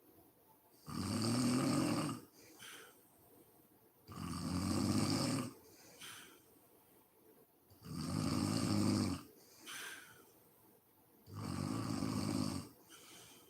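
A sleeping woman snoring: four loud, rasping snores about three and a half seconds apart, each lasting just over a second, with softer breaths between them.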